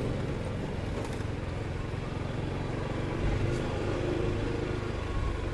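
Motorcycle engine running steadily at low road speed, a continuous low rumble with road noise.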